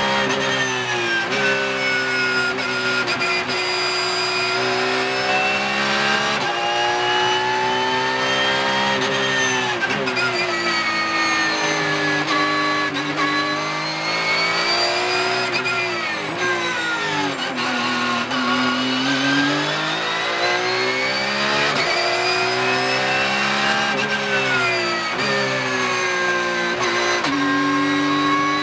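Porsche 911 GT3 Cup race car's naturally aspirated flat-six heard from inside the cockpit at racing speed. The engine note rises and falls repeatedly through gear changes as the car brakes for corners and accelerates out of them, with its lowest pitch a little past halfway.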